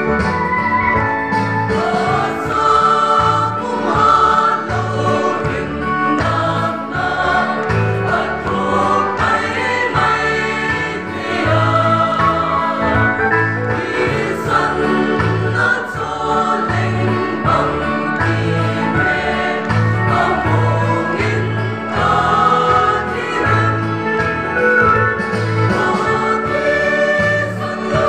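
Mixed choir of young women and men singing a gospel hymn together, with a steady low beat of accompaniment beneath the voices.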